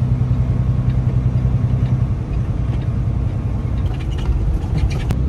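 Semi truck's diesel engine and road noise heard from inside the cab while driving, a steady low drone, with a sharp click near the end.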